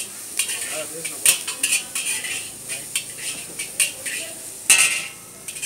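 Long metal ladle scraping and clanking against a large wok as noodles are stir-fried, in irregular sharp strikes every few tenths of a second over a steady hiss of frying; the loudest clank comes near the end.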